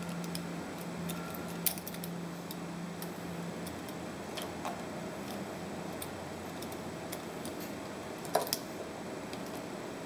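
Light metal clinks of a hand tool and small screws as the power feed's front cover is unscrewed: a sharp one about a second and a half in, a couple of fainter ones, and a double clink near the end. Under them runs a steady hiss of recording static.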